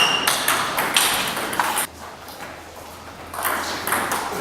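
A series of sharp taps and knocks at an uneven pace, dropping away for about a second and a half in the middle before starting again.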